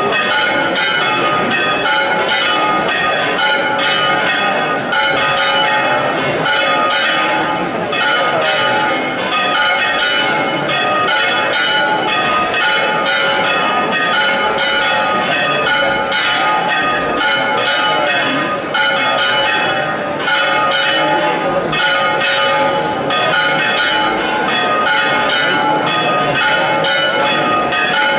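Church bells ringing a continuous peal, strike after strike over their lingering ringing tones.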